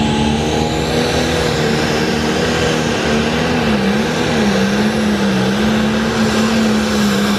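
Turbocharged diesel engine of a Pro Stock pulling tractor running flat out under load as it drags the weight sled. The engine note is loud and steady, sags briefly about halfway through as the load bites, then recovers.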